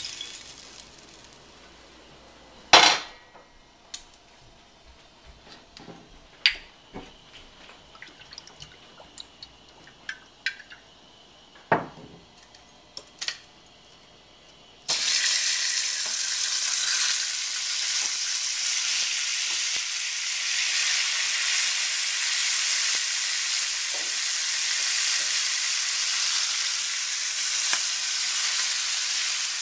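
Scattered clinks and knocks of a stainless steel pan against dishes at a sink, then, cutting in suddenly about halfway through, a steady sizzle of hot oil frying in a stainless steel pan of veal shanks with carrots, celery and onions.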